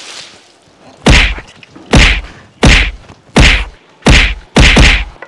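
A splash of thrown water fading out, then a staged beating: about seven heavy whacks of stick blows, one roughly every 0.7 s, the last two coming close together near the end.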